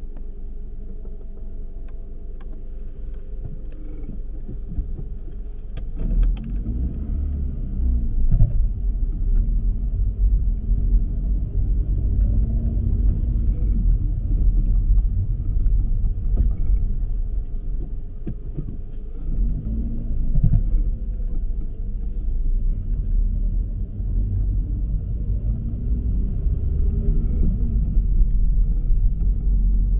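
A car being driven: a steady low rumble of engine and road noise, which gets louder about six seconds in.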